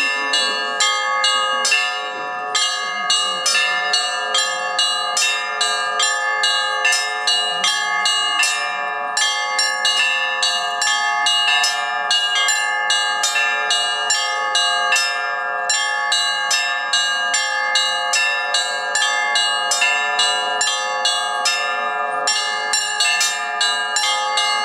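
Russian church bells rung in a continuous peal: several bells sounding together, with quick repeated strikes about twice a second over the steady ring of the larger bells.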